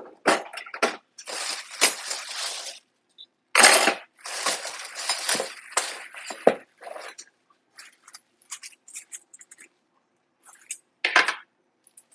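Dishes and utensils being handled at a kitchen counter: irregular rustling and clinking, with louder clatters about four seconds in and again near the end.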